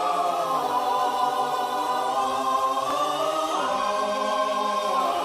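A choir singing long held chords without instruments. The pitches move slowly from chord to chord, with a few gliding changes about three and a half and five seconds in.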